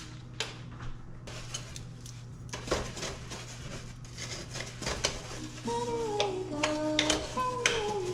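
Hard household objects clinking, knocking and clattering as they are handled and set down, in a series of sharp irregular clicks.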